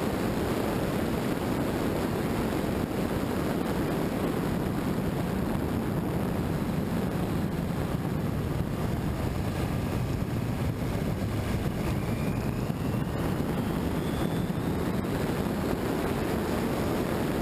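Steady, muffled rush of wind and road noise on a motorcycle-mounted action camera riding at road speed.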